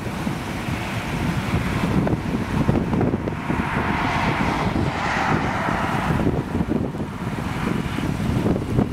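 Gusty thunderstorm outflow wind buffeting the microphone in a steady low rumble. A hiss swells and fades about midway.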